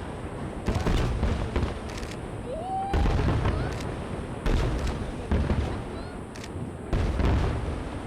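Aerial fireworks shells bursting overhead: about five deep booms, each with a rumbling echo that fades slowly, spaced one to two seconds apart.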